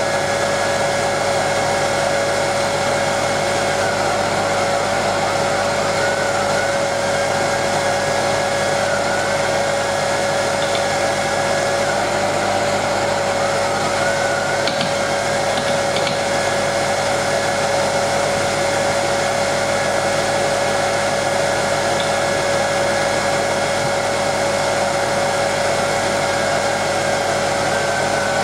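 230 V induction motor running at speed, its magnet disc dragging the thick aluminium disc of a DC generator without contact, the generator turning under the load of three lit bulbs. It gives a steady whine with one strong steady tone and a higher tone that wavers slightly.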